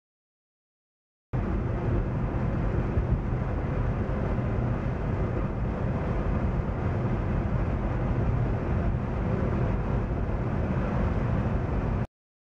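Steady road and engine noise heard inside a moving car's cabin: a low rumble with hiss above it, starting abruptly about a second in and cutting off just before the end.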